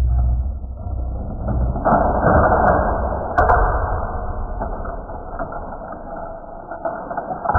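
Plastic toy playset mechanism of a Hot Wheels Shark Escape set rattling and clicking as a toy car is sent through it to free the car in the shark's mouth, loudest from about two to three and a half seconds in.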